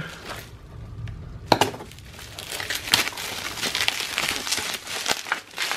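Plastic bubble wrap crinkling and rustling as it is pulled off a small box, with a single sharp click about a second and a half in.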